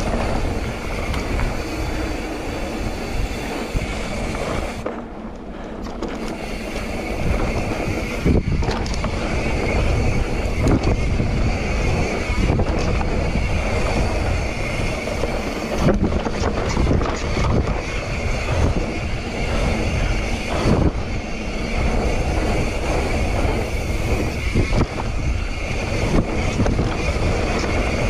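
Wind buffeting the microphone as a mountain bike descends a rough dirt downhill trail, with the bike rattling and knocking over bumps throughout.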